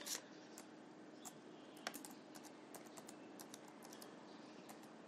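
Faint computer keyboard typing: light, irregular key clicks over a faint steady low hum.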